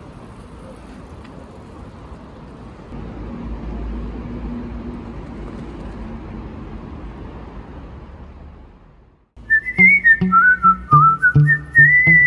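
A steady low rumble of background noise swells and then fades away. It gives way, a little past the middle, to background music: a whistled melody over a plucked guitar-like accompaniment with a steady beat.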